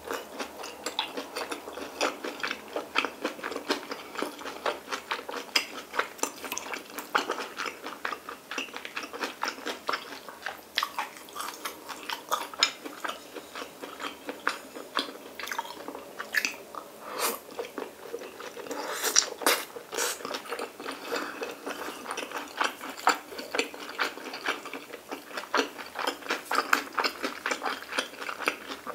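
Close-miked chewing of pork belly and stir-fried kimchi with rice: a steady run of small mouth clicks and smacks, with the odd light tap of chopsticks on a dish.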